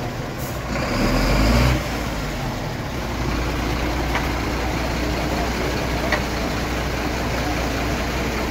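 Motor vehicle engine running steadily near the microphone, louder for a moment about a second in.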